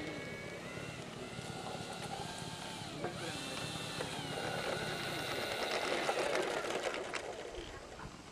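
R/C model biplane's motor and propeller running as it taxis, a steady whine whose pitch drops and then jumps up about three seconds in, shifts again a little later, and fades away near the end.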